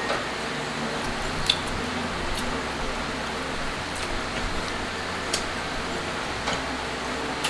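Close-up eating sounds: scattered wet clicks and smacks from chewing and handling sticky barbecued pork and chicken with bare hands, over a steady background hiss.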